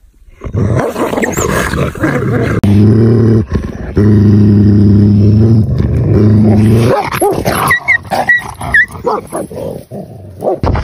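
A wolf and a Tibetan mastiff growling over food. The deep, steady growls last most of the time, and about seven seconds in they break into a few short high yelps and snarls as the animals scuffle.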